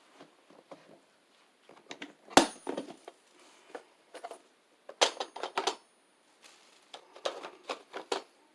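Hard objects being handled and set down: scattered clicks, clinks and knocks, with a sharp knock about two and a half seconds in and further clusters of clicks around five and eight seconds in.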